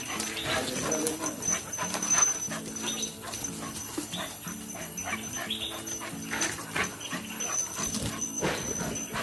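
Dogs play-fighting, their vocal sounds over steady background music.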